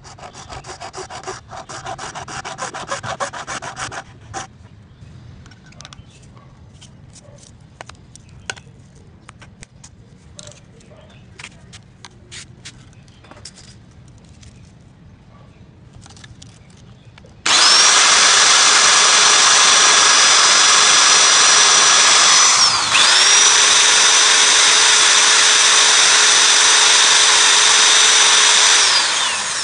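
A round file rasps against PVC pipe for about four seconds, followed by scattered small clicks of handling. Then an electric drill fitted with a cone sanding bit runs at a steady high whine for about eleven seconds while grinding the PVC, letting off briefly once partway through before winding down near the end.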